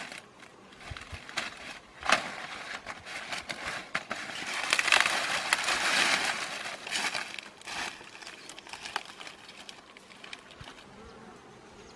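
Dry corn stalks and brush rustling and crackling as someone pushes through them on foot, with many small snaps. It swells loudest a few seconds in, then fades to a quieter rustle.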